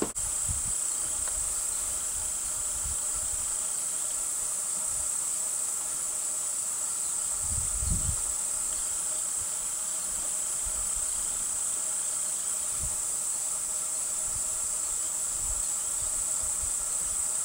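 Steady, high-pitched drone of an insect chorus, with a brief low thump about eight seconds in.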